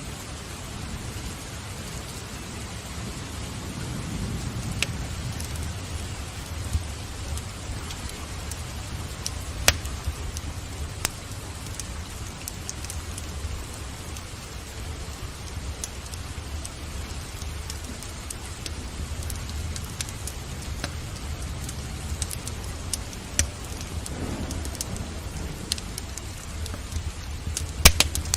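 Steady rain mixed with the crackle of a wood fire in a fireplace: scattered sharp pops and snaps, the loudest near the end, over a continuous rain hiss. A low rumble underneath swells about four seconds in and again near the end.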